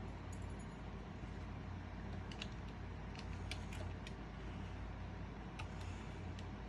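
A steady low hum with a few faint, short metal clicks and taps scattered through it: the clamp and fittings of a VW bus vent window being handled and put back into place.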